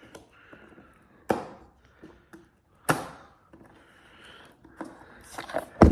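A knife cutting and scraping through the cardboard packaging of a box of LED pod lights, in short scrapes broken by three sharp knocks, the loudest near the end.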